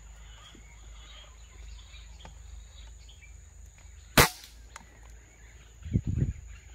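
A single sharp crack of an air-rifle shot about four seconds in, with a short ring after it. A couple of low thumps follow near the end, over a steady low rumble.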